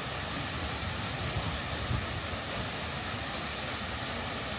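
Seljalandsfoss, a 60 m glacier-fed waterfall, giving a steady rush of falling water with a low, uneven rumble underneath.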